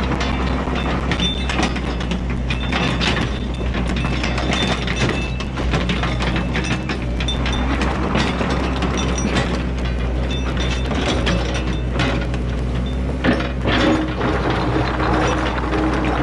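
Yanmar ViO80 mini excavator's diesel engine running steadily under hydraulic load, while the bucket pounds and drags riprap stone into a gravel road edge: repeated rock knocks and scraping, with a sharper knock about 13 seconds in.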